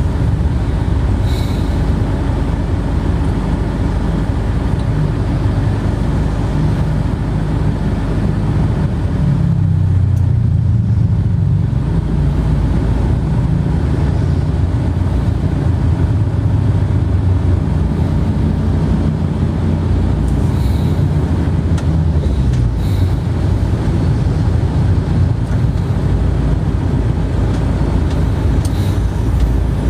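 Steady, loud low rumble like a running vehicle, shifting slowly in pitch, with a few faint ticks.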